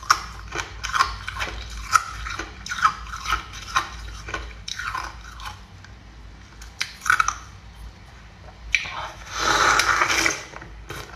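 Thin ice being bitten and chewed: a run of sharp, crisp cracks and crunches, with one dense, loud burst of crunching about nine seconds in.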